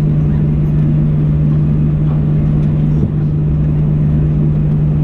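Cabin noise of a Boeing 737-800 taxiing with its CFM56-7B engines at idle: a steady low hum over a rushing background, dipping briefly about three seconds in.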